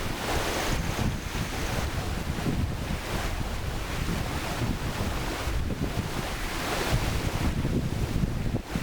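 Mountain river water rushing over rocks: a steady, dense rush that swells and eases every second or so.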